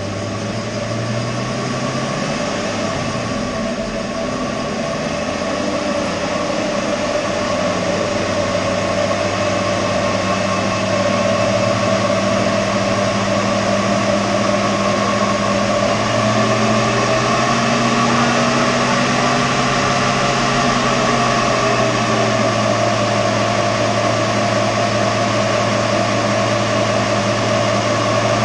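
Rebuilt Ford 4.6-litre V8 of a 5-speed manual Mercury Grand Marquis running on a chassis dyno for engine break-in. Its note shifts in pitch over the first few seconds, then holds steady, growing louder until about ten seconds in.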